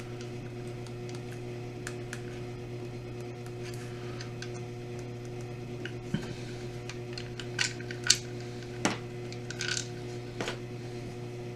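Small metal clicks and clinks of a screwdriver and tiny screws being handled while the joystick's circuit board is unscrewed, with a few louder clinks in the second half. A steady electrical hum runs underneath.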